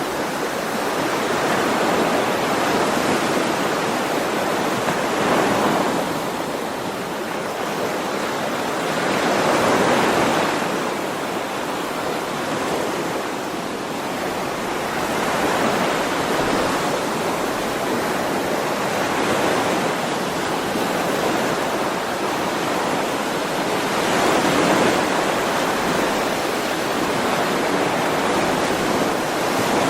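Ocean waves washing onto the shore in a continuous rush. The surf swells and eases about every five seconds.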